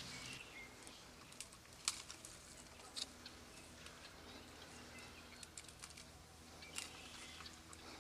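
Dry twigs and branches snapping and rustling as an African elephant breaks them off a tree with its trunk while browsing: a few sharp cracks, the clearest about two, three and seven seconds in, over light crackling.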